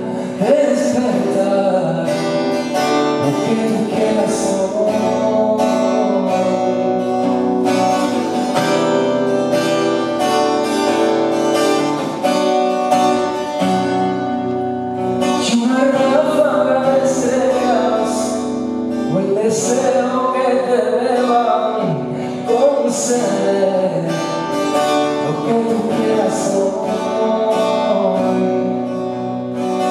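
A man singing a slow ballad live, accompanying himself on an acoustic guitar.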